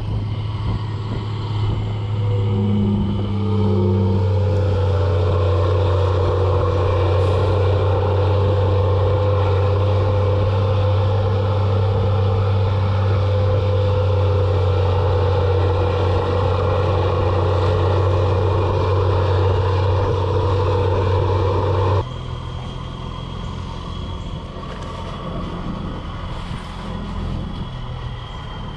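Diesel engine of a Volvo 140 excavator running. It throttles up in the first few seconds, holds a steady high run, then drops suddenly to a quieter, lower run about three-quarters of the way through.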